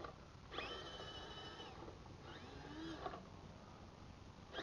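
Drivetrain of a 1:18 scale Fire Horse Wrangler RC crawler whining in short bursts as the throttle is applied: two bursts of about a second, each climbing quickly in pitch and then holding, with a third starting near the end. This is the louder of the two trucks; the Traxxas is the quieter one.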